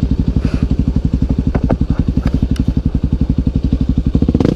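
Single-cylinder four-stroke engine of a Honda Tornado 319cc trail bike, chugging at low revs with a steady, even beat and a few light clicks. It picks up revs right at the end.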